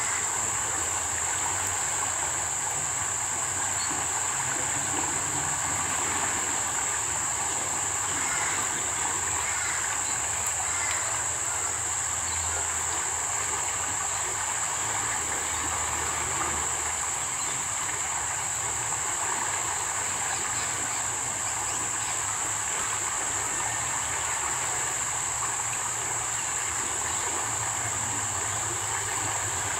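Rain-swollen floodwater rushing fast and turbulent through palms and undergrowth, a steady unbroken rush. A steady high-pitched whine runs over it.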